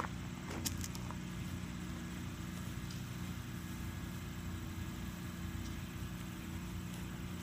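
Lawn mower engine running steadily in the background, a constant low hum.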